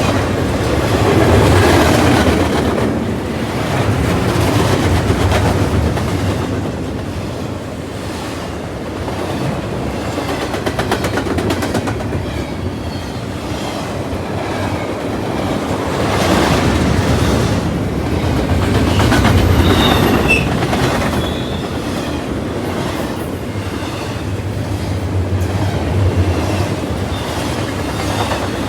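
Freight train cars rolling past, wheels clicking rhythmically over rail joints over a steady rumble, with a brief high wheel squeal about two-thirds of the way through.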